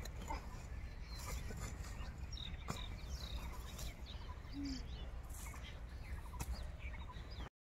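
Scattered bird chirps and calls over a faint steady outdoor background, with a couple of light knocks.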